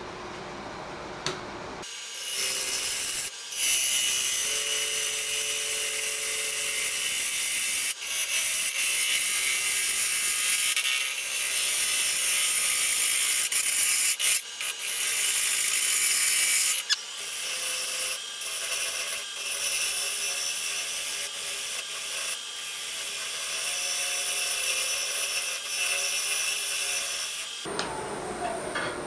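A gouge cuts the outside of a large, kiln-dried pecan bowl spinning on a wood lathe, making a steady, loud hissing scrape. The cutting starts about two seconds in, breaks off briefly a few times, and stops shortly before the end, leaving only the lathe's quieter hum.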